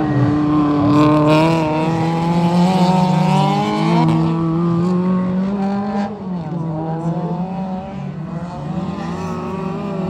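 Rallycross race car engines running at high revs, their pitch rising and falling with throttle and gear changes. The sound is loudest for the first six seconds, then eases a little.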